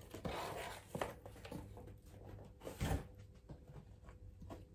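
Faint rustling and handling of packing materials being gathered up, with a few soft knocks; the heaviest, a dull thud, comes about three seconds in.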